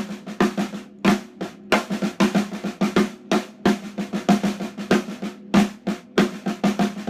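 Snare drum played in a linear exercise pattern, with loud accented strokes from the left hand set among quieter ghost notes in a steady, continuous rhythm. The drum rings with a low tone under each hit.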